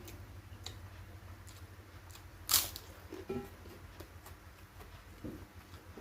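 Eating sounds: scattered small clicks and mouth noises, with one loud, sharp crunch a little before halfway and a few softer knocks after it, over a steady low hum.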